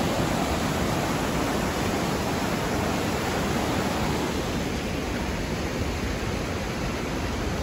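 A steady, loud rushing noise, even and without any rhythm or tone.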